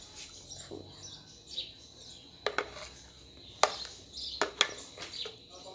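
Metal spoon clinking against a blender jar and a small glass bowl as thick passion fruit mousse is poured and scraped out: a few sharp clinks, mostly in the second half.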